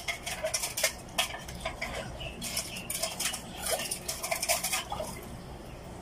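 Close-up eating sounds: quick, irregular clicks and crackles of chewing and of fingers picking food out of a metal tray.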